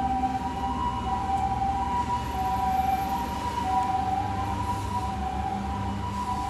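Japanese ambulance's two-tone siren sounding the alternating high-low 'pee-poh' pattern as the ambulance drives off, with a low rumble of road traffic underneath.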